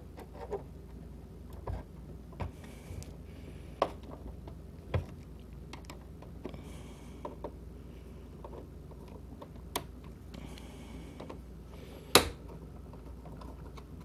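The plastic housing of a ViewSonic PX747-4K projector being pried at by hand: scattered small clicks and soft rubbing scrapes as the top cover's snap clips are worked, with one louder sharp click near the end.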